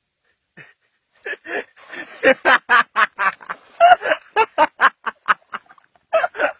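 A person laughing hard in a long run of quick bursts, starting about a second in, with a short break near the end before the laughter picks up again.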